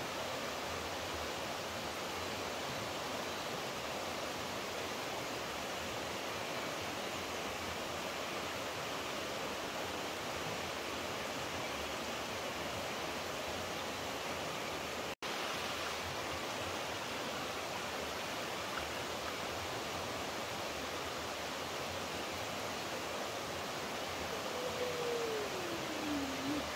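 Steady rush of flowing water, like a stream or small waterfall, as an even continuous hiss. The sound cuts out for an instant about halfway through, and near the end a short tone slides downward.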